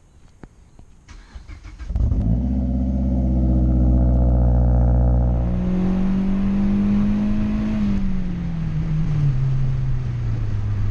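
A car engine cold-starting: a few clicks, then the engine fires and catches about two seconds in and runs at a raised cold idle. Its pitch shifts a few seconds later and then falls gradually as the idle settles lower near the end.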